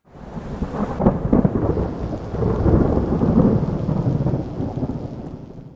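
Thunder rumbling over rain, building in the first second, loudest through the middle and fading out near the end.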